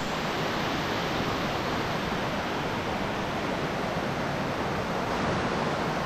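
Waterfall water rushing, a steady, quite loud hiss that does not change.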